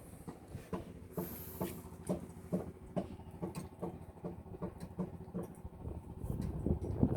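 Short repeated croaking pulses, about three a second, of the kind a freshly caught baung catfish makes, with a low rumble building near the end.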